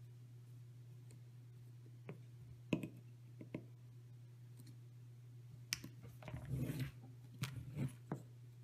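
Small wire cutters snipping quadcopter ESC power wires to length at the distribution board. There are scattered sharp clicks and some rustle of the wires being handled, over a steady low hum.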